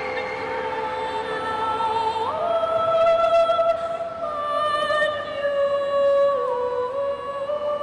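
Slow music of long held, sustained notes that shift to new pitches every couple of seconds, with a step up about two seconds in.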